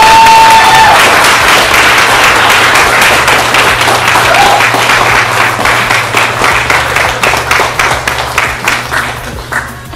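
A small crowd applauding with dense clapping that thins out into scattered single claps over the last few seconds. A brief high call sounds at the start.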